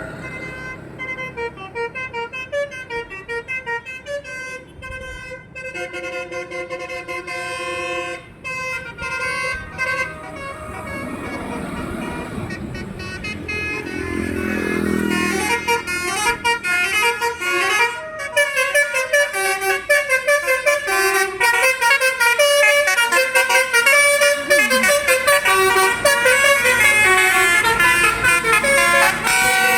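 Bus basuri horn, a multi-tone musical horn, playing tunes of short stepped notes: spaced notes at first, then fast runs of notes that grow louder about halfway through.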